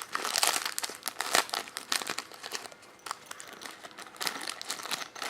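Packaging being handled, crinkling and rustling in quick, irregular crackles.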